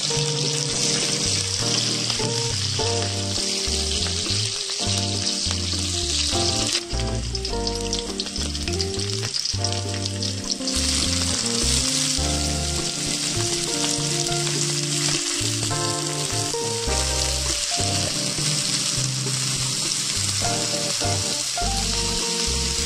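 Oil sizzling in a steel kadhai with cumin seeds and green chillies, then chopped onions frying, with the sizzle strong again from about eleven seconds in and a spatula stirring near the end. Background music plays throughout.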